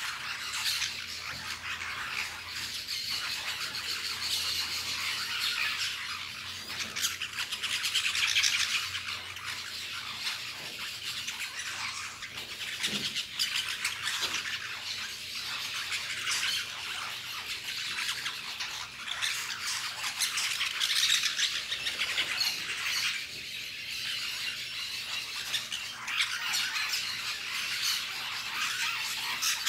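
Flock of small green parakeets feeding together, calling constantly in a dense chatter of many overlapping high, scratchy squawks.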